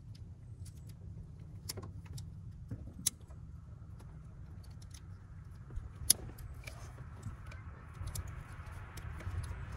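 Scattered light clicks and taps of a fuel injector and the metal fuel rail being handled as the injector is pushed and twisted into its port on the rail, over a low steady rumble.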